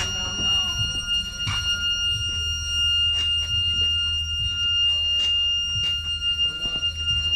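A steady, continuous high-pitched electronic tone, like an alarm or buzzer held on, over a low steady hum, with scattered clicks and knocks.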